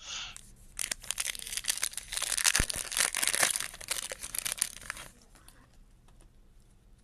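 A Topps Chrome baseball card pack wrapper being torn open and crinkled. A short rustle as the pack is picked up, then dense crackling for about four seconds, loudest in the middle, before it stops.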